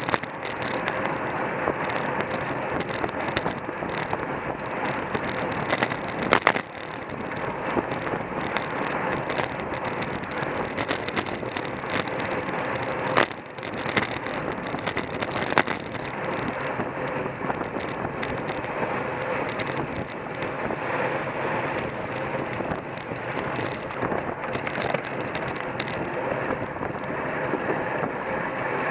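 Road bicycle ridden at race speed, heard from a camera on the bike: a steady rush of wind and tyre noise, with sharp knocks about six and thirteen seconds in and a lighter one soon after.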